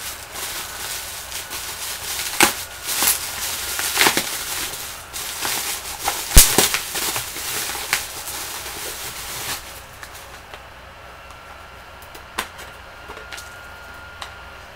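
Wrapping on a small package crinkling and crackling as it is unwrapped by hand, with sharp snaps now and then. The crackling dies down about ten seconds in, leaving a few light taps.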